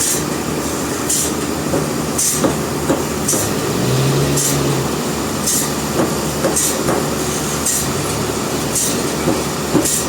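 Sawmill machinery running steadily, with a short high hiss repeating about once a second.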